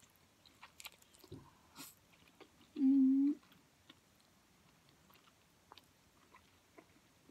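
Mouth sounds of a person eating ramen noodles: soft wet chewing clicks and a short slurp, with a brief closed-mouth hummed "mm" about three seconds in.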